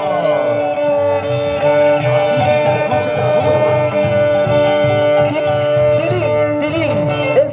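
A live band playing a tipaki tipaki dance tune, with long held melody notes over a repeating low bass pulse.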